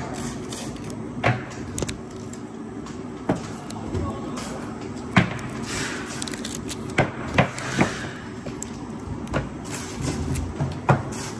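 Foil-faced flashing tape being handled and peeled: irregular sharp crinkles and snaps of the foil and its backing film, about eight of them, with a brief rustle partway through, over a steady low hum.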